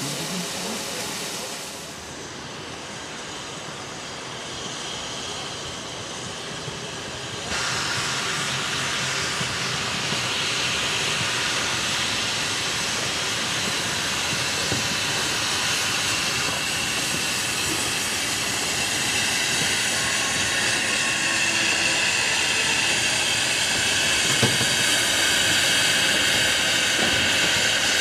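Furka HG 3/4 rack-and-adhesion steam locomotives letting off steam with a steady hiss. The hiss jumps suddenly louder several seconds in and grows stronger still as a train moves off.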